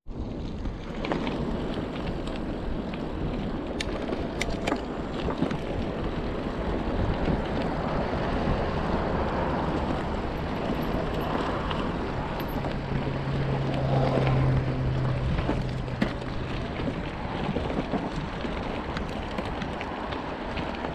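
Continuous wind noise on the microphone, with ride noise, while riding an e-bike along the trail. A few light clicks come around four to five seconds in, and a low steady hum sounds for a few seconds past the middle.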